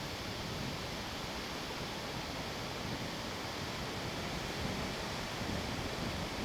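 Wind blowing steadily, an even rushing noise with some low buffeting that grows slightly stronger near the end.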